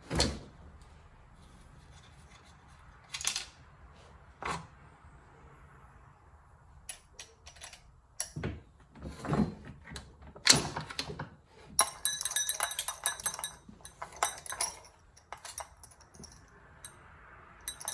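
A used chainsaw being handled and turned over for inspection: scattered knocks and metallic clinks, then a run of rapid light metallic clicking over several seconds in the second half.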